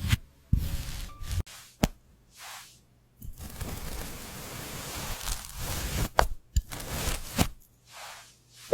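Crisp crackling and scraping sounds of crumbly food, cut together in short snippets with sharp cracks and clicks and several abrupt silences between.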